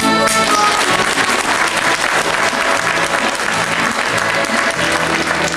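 Audience applauding, many hands clapping, with music playing underneath that comes up near the end.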